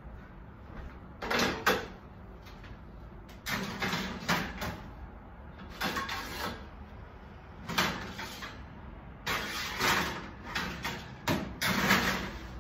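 Metal baking sheets being slid into an oven, with the oven door and racks clanking: a string of separate clatters and scrapes a second or two apart.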